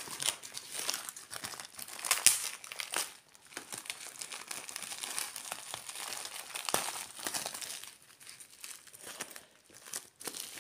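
Plastic packaging crinkling and rustling in irregular bursts as a silvery plastic pouch is handled and pulled open by hand, with a sharp crackle at the start and a louder stretch about two seconds in.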